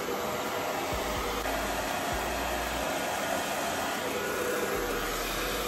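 Hair dryer blowing steadily on the cool setting, stopping near the end.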